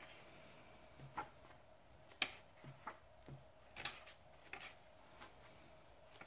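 Glossy paper pages of a thick hardcover comic omnibus being turned by hand a few at a time: a series of faint, short paper flicks and swishes at irregular intervals.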